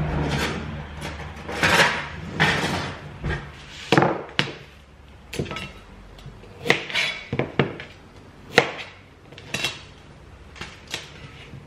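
Irregular knocks and clatter of kitchen items being handled and set down on a counter while food is prepared, about fifteen separate sharp hits, a few followed by brief rustling.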